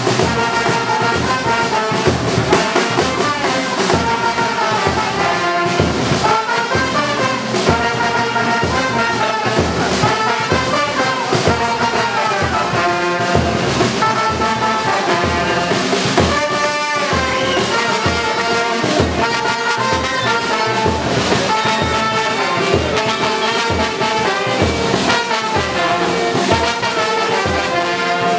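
Music with brass instruments carrying the melody over a steady beat.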